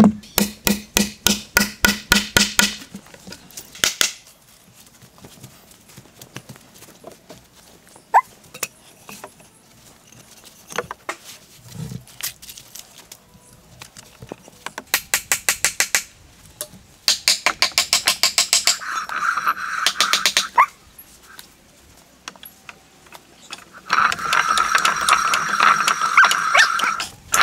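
Several runs of quick, evenly spaced strokes of a hand tool working on bamboo or wood, about five strokes a second, with pauses between the runs. The last run has a ringing tone under the strokes.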